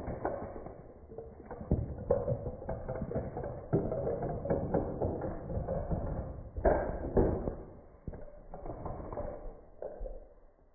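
Parts of a homemade Rube Goldberg chain reaction clattering as it runs: a steady stream of small clicks, knocks and rattles, with a few louder knocks, dying away near the end.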